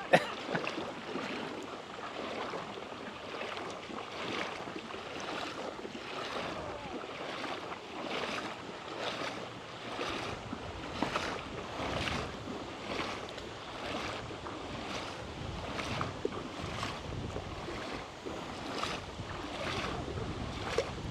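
Shallow river water splashing and sloshing in a steady rhythm, a little more than one splash a second.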